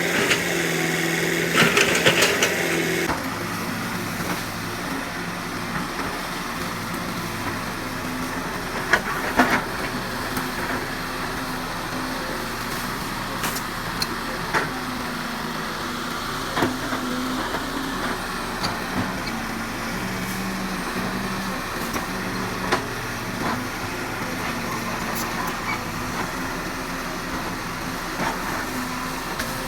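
Excavator's diesel engine running steadily, working harder for the first three seconds and then easing to a lower, even note. A few sharp metallic knocks come through at intervals.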